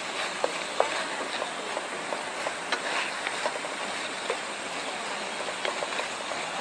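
Chicken with basil cooking in soy and oyster sauce in a pan, the sauce simmering with a steady hiss and scattered small pops as the dish finishes cooking.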